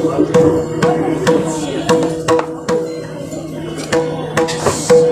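Kirtan music with no singing: steady held notes under sharp drum and percussion strokes at an even beat of about two a second.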